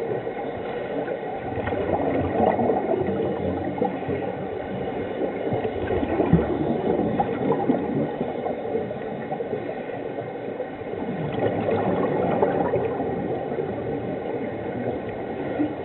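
Scuba regulator exhaust bubbles gurgling, heard underwater, swelling louder every few seconds with each exhalation.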